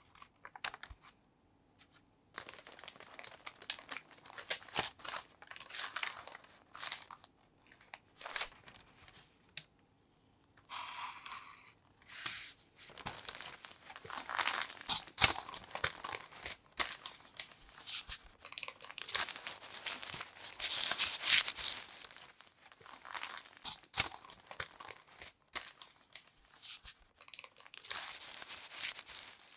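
Parchment baking paper rustling and crinkling as it is peeled back from a sponge sheet and then rolled around the cream-filled roll cake, in irregular stop-and-start bursts.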